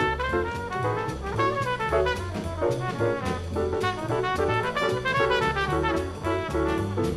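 1964 small jazz combo recording: a brass horn plays fast runs of notes over a bass line, piano and drums with steady cymbal strokes.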